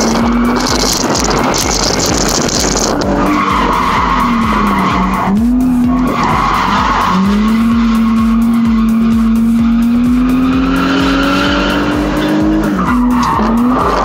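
Nissan 350Z's 3.5-litre V6 at high revs with its tyres skidding and squealing through a drift, heard from inside the cabin. The engine note dips sharply and recovers about five seconds in, then holds high and climbs slowly, falling off near the end.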